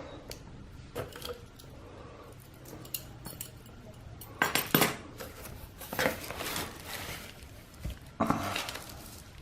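Items being handled and lifted out of an opened box: rustling with light knocks and clinks, the loudest rustles about four and a half, six and eight seconds in.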